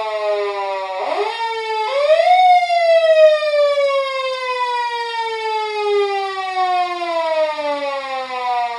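Japanese police patrol car siren wailing. Two quick rising sweeps about a second apart, about 1 and 2 seconds in, lead into one long wail that slides slowly down in pitch for the rest of the time.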